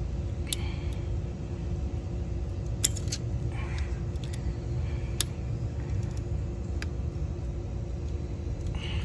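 Steady low rumble with a faint hum, and a few sharp metal clicks of a small Allen key working the bolts of a plastic motorcycle spoiler.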